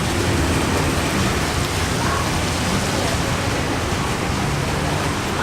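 Heavy rain falling steadily, an even hiss without let-up.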